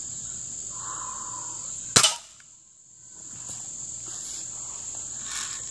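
A single sharp shot from a Daisy BB gun about two seconds in. A steady high buzz of insects runs underneath.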